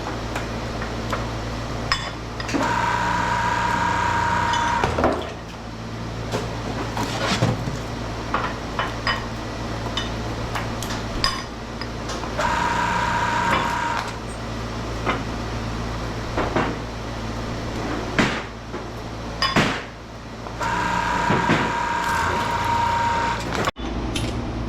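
A scrap-processing machine runs with a steady hum; three times it gives a steady whine for about two seconds as it works under load, while pieces of metal clank and clatter.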